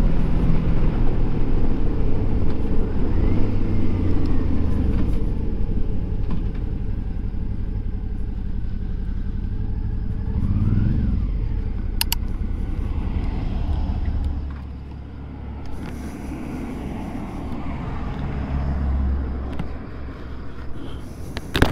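Suzuki V-Strom DL650 XT's 645 cc V-twin engine running on the move, with a brief rise and fall in revs about halfway through, then going quieter about two-thirds of the way in. A sharp click is heard just before the end.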